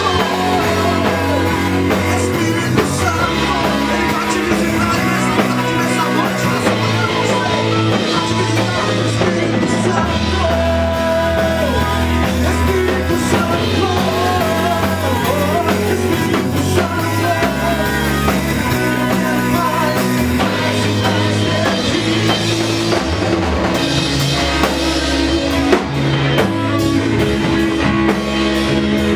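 Live worship band playing a song, with drum kit, electric guitar and bass under singing.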